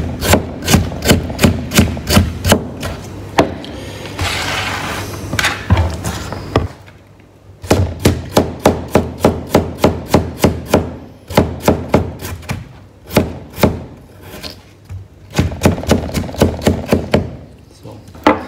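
Chef's knife slicing raw peeled potatoes thin and fast, the blade knocking down onto a plastic cutting board in quick runs of about four strokes a second, broken by short pauses. About four seconds in there is a short stretch of scraping.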